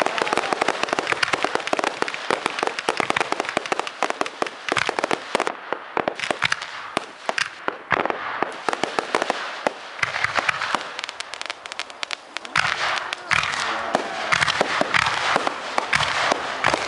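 Aerial fireworks crackling: a dense, continuous run of rapid sharp pops from crackle-star shells. It thins out and quietens around the middle, then builds again with stronger pops in the last few seconds.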